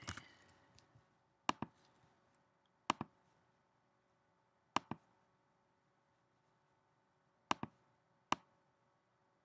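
Computer mouse clicking: five single clicks, each a quick press-and-release pair, spaced one to three seconds apart.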